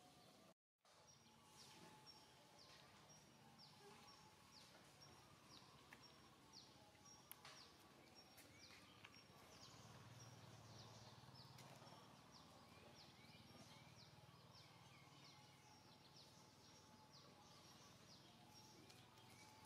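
Faint outdoor ambience with a long, regular series of short, high, falling chirps, about two a second, and a brief dropout in the sound just under a second in.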